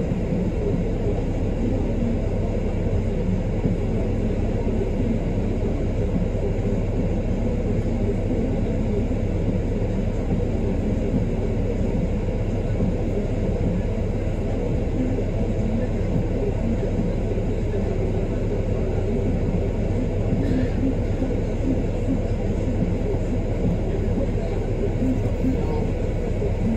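A bus engine idling while the bus stands still, heard from inside the bus as a steady low rumble.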